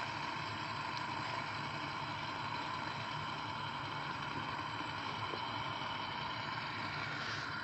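Steady whirring of a Beyblade and a fidget spinner spinning against each other in a battle.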